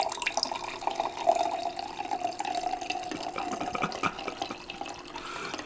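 Cocktail pouring in a steady stream from a stainless steel cocktail shaker into a wine glass, liquid splashing and trickling as the glass fills.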